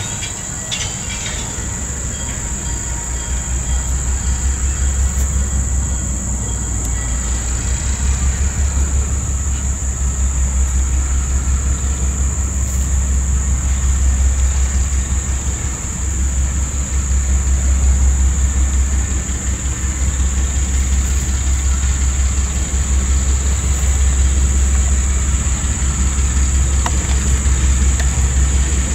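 Diesel switcher locomotive's engine running as it moves slowly toward the listener, a steady low rumble that grows louder over the stretch.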